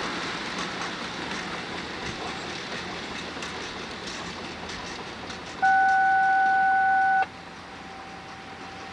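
Amtrak passenger train rolling away on the rails, its wheels clicking over rail joints as the sound fades. About five and a half seconds in, a loud steady single-pitched tone sounds for about a second and a half and cuts off sharply, leaving a faint trace of the same pitch.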